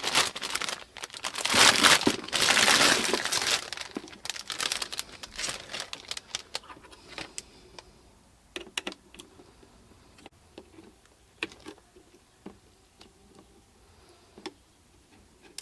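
Crinkly packaging being handled and rustled loudly for the first several seconds, then quieter scattered clicks and taps as computer parts are handled.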